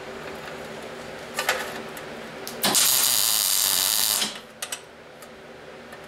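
MIG welder tack-welding steel: a very short blip of arc about a second and a half in, then the arc runs steadily for about a second and a half before cutting off, with a couple of small ticks after. A steady hum runs underneath.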